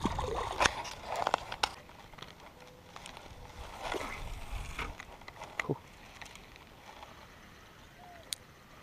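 A small splash as a little bass is dropped back into the pond, followed by scattered clicks and rustles of the rod and reel being handled through a cast.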